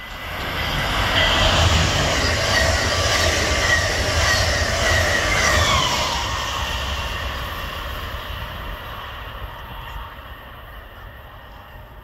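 Amtrak Acela trainset passing at speed: a loud rush of wheels on rail with a low rumble and high whines. The whines drop in pitch about six seconds in as the train goes by, then the noise fades away.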